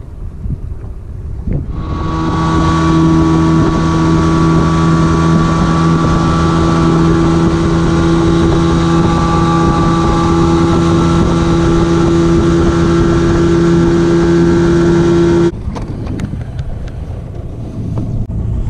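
Small outboard motor on an aluminium fishing boat running under way at a steady speed, a constant hum over a rushing wash. It comes up about two seconds in and cuts back sharply about fifteen seconds in, leaving a lower rumble.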